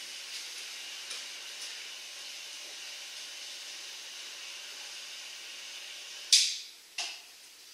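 Water from the fill pipe pouring into the flood-test tank, a steady hiss. About six seconds in it stops with a loud sudden rush of noise, followed by a shorter one under a second later.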